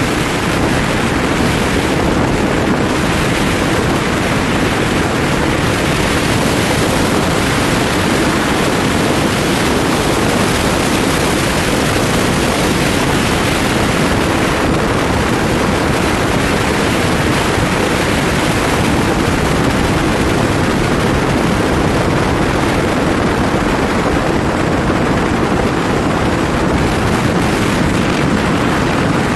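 Steady, loud wind rush over a motorcycle-mounted microphone at cruising speed, with the Tufan Istiqlal 250's running noise blended underneath and no change in pace.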